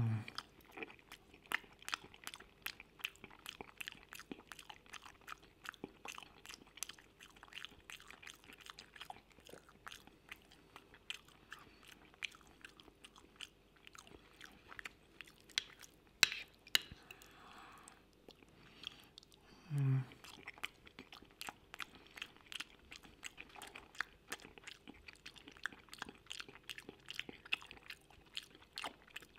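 Close-miked chewing of creamy mushroom pasta, with wet mouth clicks and smacks several times a second. A brief low voiced mouth sound comes at the start and again about twenty seconds in.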